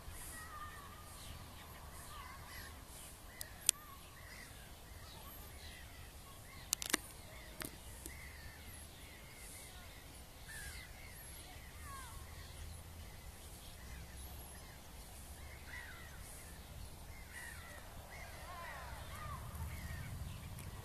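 Birds calling, many short chirping calls scattered through, over a low rumble that swells near the end. A few sharp clicks stand out, once around four seconds in and a quick cluster around seven seconds.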